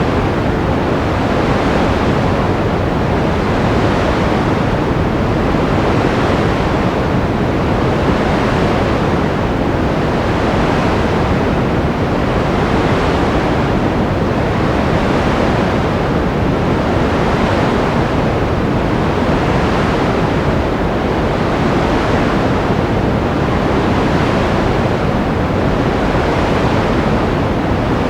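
Baby-sleep white-noise track: a steady rushing hiss, heavier in the lows than the highs, whose upper range swells and fades about every two seconds, much like surf.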